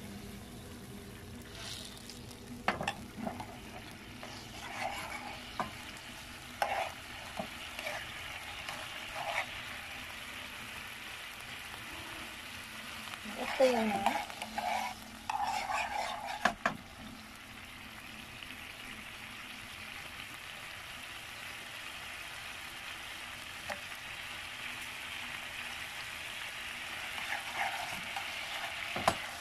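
Oyster-sauce gravy simmering in a nonstick frying pan with a steady bubbling hiss. A metal spoon stirs through it and clinks and scrapes against the pan, loudest in a flurry of knocks and scraping about halfway through.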